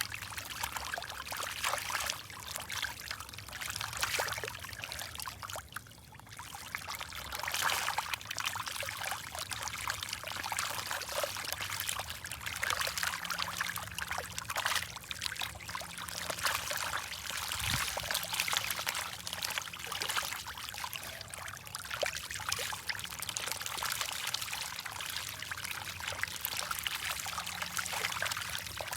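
Water trickling and splashing steadily, with many small crackling splashes.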